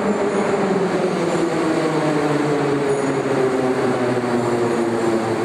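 Moscow Metro train slowing as it pulls into the station: a loud, steady rumble with a motor whine that falls steadily in pitch.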